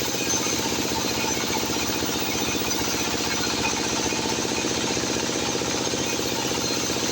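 Sawmill machinery running steadily, with a rapid, even pulsing over a steady hum.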